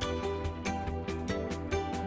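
Background music: a steady beat with plucked guitar and bass.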